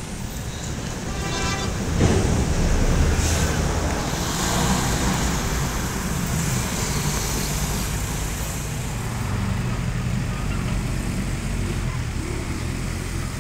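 Road traffic on a paved street: vans and motorcycles driving past, with a louder vehicle passing close about two seconds in.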